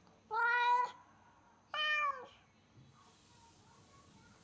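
Domestic cat meowing loudly twice, two long drawn-out meows about a second and a half apart, each dropping in pitch at the end: a cat left home alone calling out for its absent owners.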